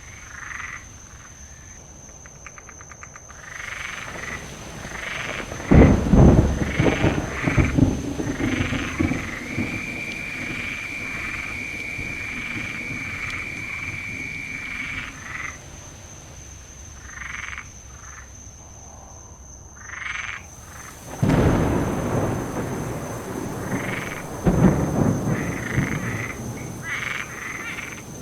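Frogs croaking in short repeated calls, with one long steady trill in the middle. Thunder rumbles loudly about six seconds in and again twice after about twenty seconds, each rumble rolling on for a few seconds.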